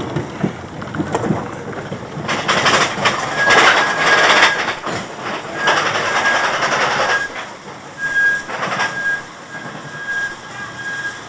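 Arrow mine-train roller coaster cars rattling along steel tubular track and starting up a chain lift hill, the clatter coming in louder stretches, with a thin high squeal that comes and goes.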